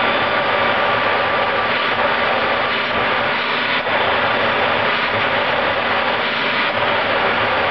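Homemade turbojet gas-turbine engine built from a Caterpillar turbocharger, running steadily: a loud, even jet roar with a thin steady whine on top.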